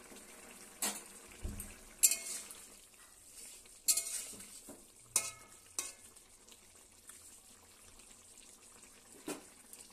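Cauliflower-and-potato curry simmering with a low sizzle in an aluminium kadai, while a metal utensil clanks sharply against the pan about six times.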